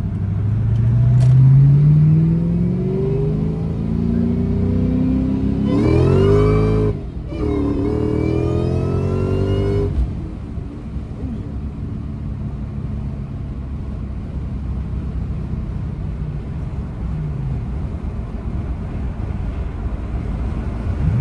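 Supercharged 4.6-litre V8 of a 2003–04 Mustang SVT Cobra, heard from inside the cabin through a new SLP catted X-pipe and Magnaflow Street Series cat-back exhaust, accelerating with the revs climbing twice in the first few seconds. About six seconds in, a harder pull brings a high, rising supercharger whine over the exhaust note, broken by a brief dip and then climbing again. From about ten seconds the engine settles to a steadier, quieter cruise.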